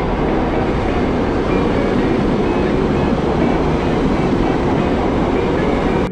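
Subway train running through an underground station: a loud, steady rail noise with faint high tones over it.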